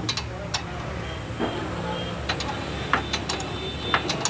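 Irregular sharp metal clicks, about eight of them, as a ring spanner and Allen key are worked on the upper nut of a car's sway bar link at the front strut.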